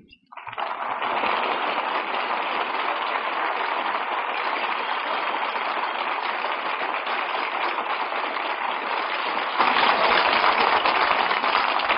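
Studio audience applauding, growing louder near the end. It is heard on a narrow-band 1940s radio broadcast recording.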